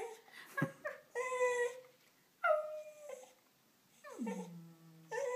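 A dog howling in a series of drawn-out, whimpering cries, several in a row with pauses between them. Some fall in pitch, and one slides far down near the end.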